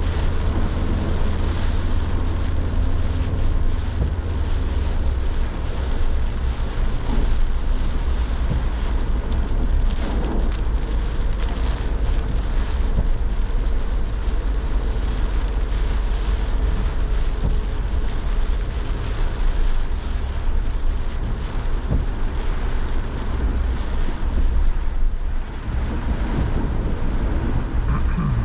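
Heavy tropical rain pouring steadily, with strong wind buffeting the microphone in a constant low rumble.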